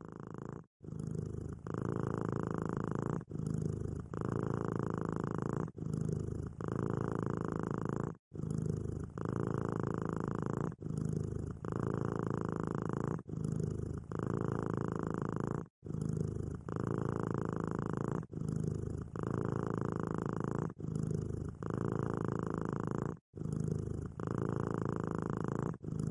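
Highlander lynx-hybrid cat purring steadily. The purr breaks off briefly at each turn of breath, about once every second or so.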